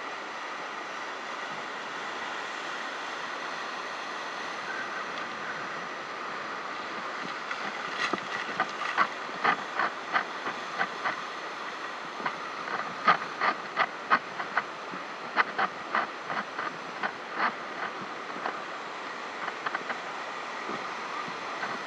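Ocean surf breaking on a rocky lava shore, a steady rush of noise. From about eight seconds in, irregular sharp clicks and knocks, one or two a second, come over the surf.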